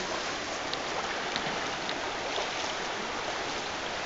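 Steady rush of flowing river water, with a few faint short clicks over it.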